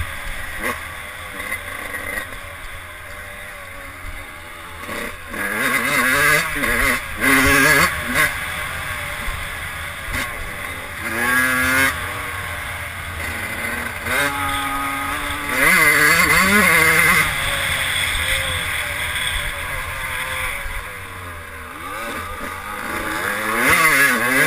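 Yamaha YZ125 two-stroke single-cylinder dirt-bike engine under hard riding, revving up in repeated bursts of throttle. Its pitch climbs and drops with each gear change.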